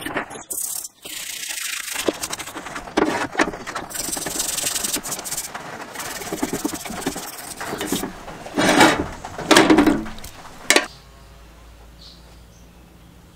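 Toothbrush bristles scrubbing a wet drill press vise in soapy water, a rough scratchy rubbing in uneven strokes that is loudest shortly before it stops. The scrubbing stops abruptly about 11 seconds in, leaving a low steady background.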